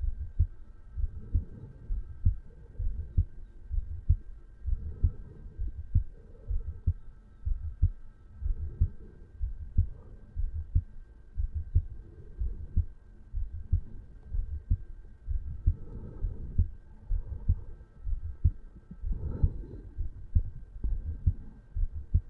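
Resting heartbeat of an adult man recorded over the mitral valve area of the chest: a steady rhythm of low lub-dub thumps, about one beat a second.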